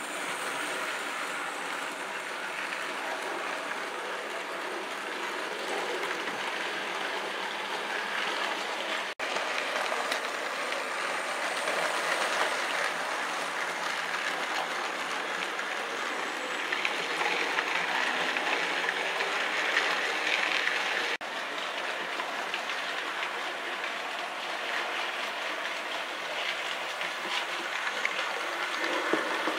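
An OO gauge model train of tank wagons running along the track behind a model tank locomotive, with a steady rolling rumble of wheels and motor. The sound breaks off abruptly for an instant twice, about nine and twenty-one seconds in.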